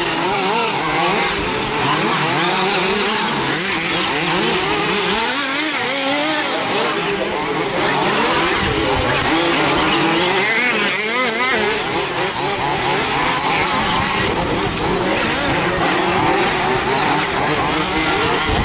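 Several 1/5-scale off-road RC cars' small two-stroke petrol engines revving up and down as they race, their pitches overlapping and constantly rising and falling with the throttle.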